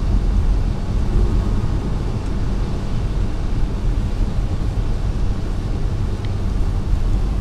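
Car driving along a wet highway, heard from inside the cabin: a steady low rumble of engine and tyre noise.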